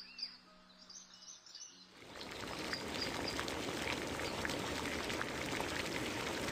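Faint bird chirps over a quiet background. About two seconds in, a steaming wok of liquid starts a dense, crackling bubbling at a rolling boil, which then holds steady and is the loudest sound.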